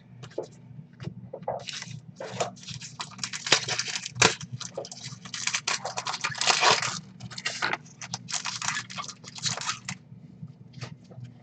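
Trading card pack wrappers being torn open and crinkled, in several stretches of crackling, with sharp clicks of cards being handled.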